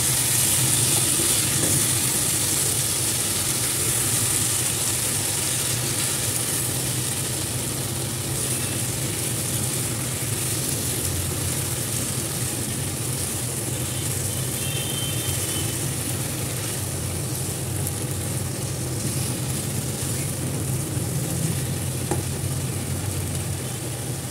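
Cauliflower and potato pieces sizzling in oil and masala in a kadhai while being stirred and turned with a wooden spatula. A steady low hum runs underneath.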